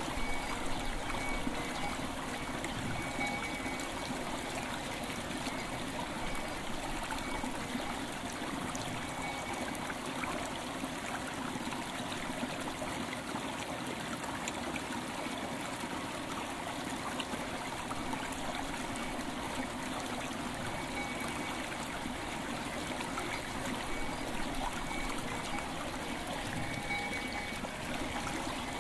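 River water flowing and trickling steadily.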